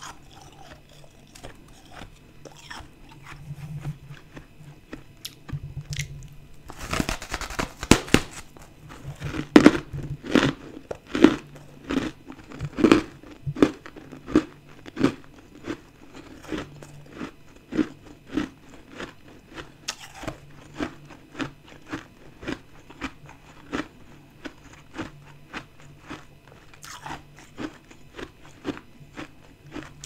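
A big bite into a chunk of refrozen powdery ice about seven seconds in, then steady crunchy chewing, about one chew every three-quarters of a second, growing gradually softer.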